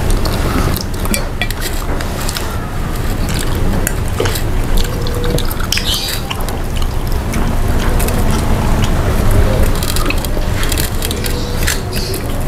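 A person eating close to the microphone: wet chewing and small clicks of food, fingers and plate, over a steady low rumble.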